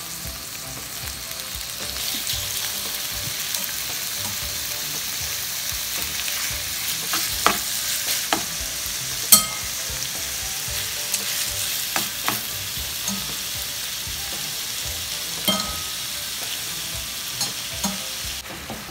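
Marinated pork strips sizzling in hot oil in a nonstick frying pan, a steady hiss, as more strips are added to the pan. A few sharp taps break through, the loudest about nine seconds in.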